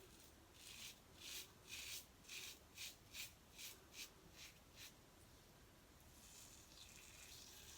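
Faint wet-shaving strokes across lathered skin: about ten short, scratchy strokes at roughly two a second, stopping about five seconds in.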